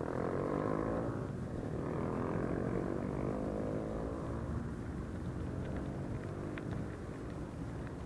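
Mountain bike rolling downhill: a freewheel hub buzzes that falls in pitch over the first few seconds, over steady wind and tyre rumble.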